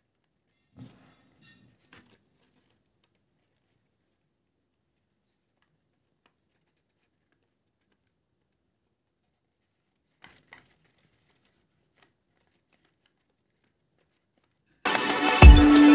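Near silence broken by a few faint paper rustles as a folded paper dragon puppet is worked by hand. About a second before the end, electronic music with heavy bass beats starts.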